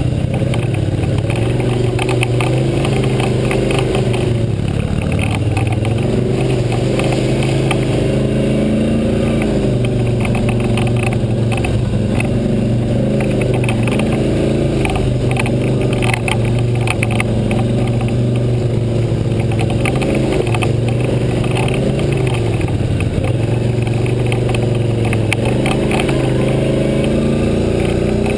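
ATV engine running while riding a rough dirt trail, its pitch rising and falling every few seconds as the throttle opens and closes. A scatter of short clicks and knocks runs through it.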